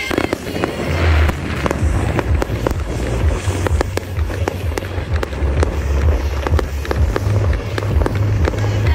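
Fireworks going off in quick succession: many sharp bangs and crackles over a deep low boom, with background music.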